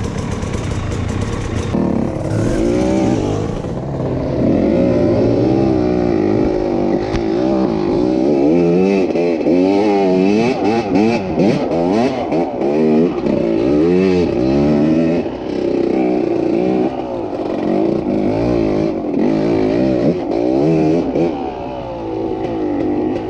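Enduro dirt bike engine heard from on the bike, revving up and down again and again as the throttle is worked while riding, with quick rises and falls in pitch and scattered clattering knocks.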